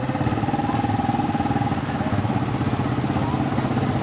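Small off-road engines of several quad bikes and a dirt bike running together, a steady rapid putter with no big revs.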